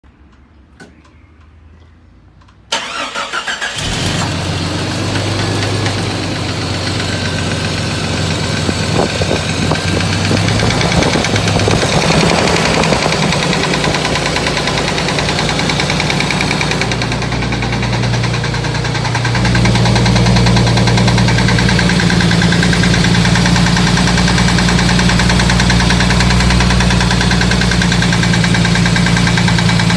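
Jeep Cherokee XJ 4.0 L HO straight-six started with a brief crank a few seconds in, then running at a fast idle, stepping up a little louder about two-thirds of the way through. It runs with a pretty loud noise that the owner suspects is the flexplate or piston slap, though the flexplate bolts are already tightened.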